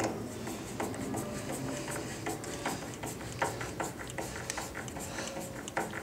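Hand crosshead screwdriver driving a wood screw into a chrome-plated steel latch plate on a timber door frame: light, irregular clicks and scrapes of the screwdriver tip in the screw head and the screw turning into the wood.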